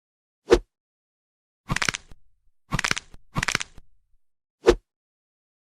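Fight sound effects for an animation: a short dull thud, then three quick crunching, cracking impacts, then a second dull thud.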